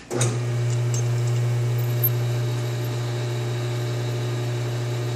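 Metal lathe switches on and runs with a steady hum, its spindle turning a rifle barrel while a .308 Winchester chamber reamer is fed in by hand: one of about 22 reaming passes to cut the chamber.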